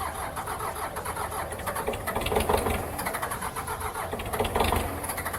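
Engine of a work machine that sat out overnight, just started from cold and running to warm up. Its level swells twice.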